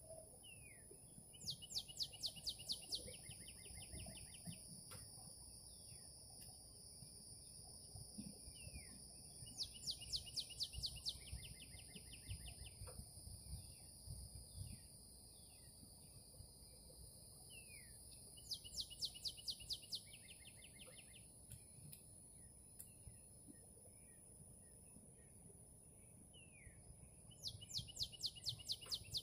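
A songbird repeating the same short phrase of rapid high notes, falling in steps, about every nine seconds (four times), with faint short chirps between. A steady high-pitched whine runs underneath.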